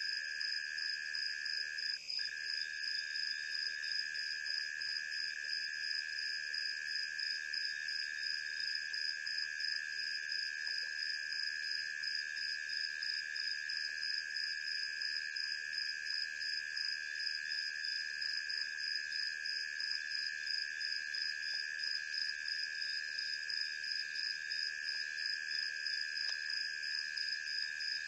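Steady night chorus of crickets: several high-pitched trills layered together, one with a fast, even pulse, going on without a break.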